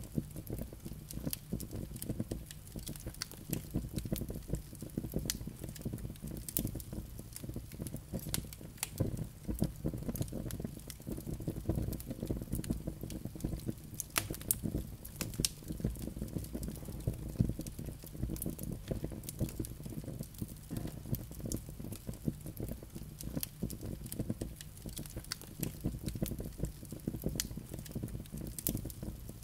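Wood fire burning in a fireplace: logs crackling with frequent irregular sharp pops over a low, steady rush of the flames.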